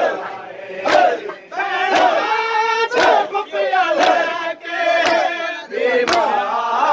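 Shia mourners' matam: a crowd of men beating their chests together, about one loud slap a second, in time with a chanted noha sung by male voices.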